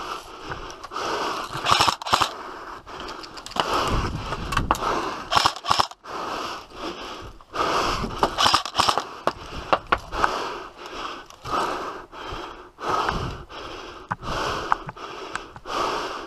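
Airsoft guns firing: sharp snapping shots, some single and some in quick strings, with scuffing and rustling between them.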